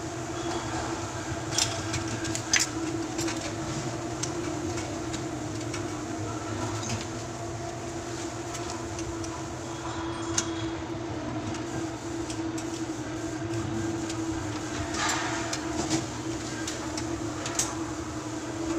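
A steady machine hum runs underneath, with a few light metallic clicks and taps as a chrome-plated sink drain trap and its slip nuts are handled and tightened by hand.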